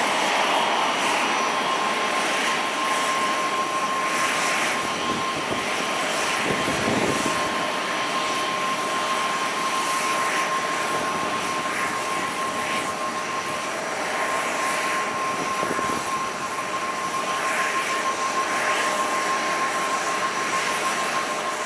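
Airbus A350-900's Rolls-Royce Trent XWB turbofans running at low taxi power: a steady jet hiss with a constant high whine.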